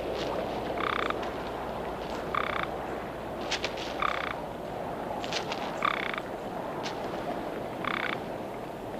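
A frog giving short trilled calls, five in all, about every one and a half to two seconds, over a steady low hiss.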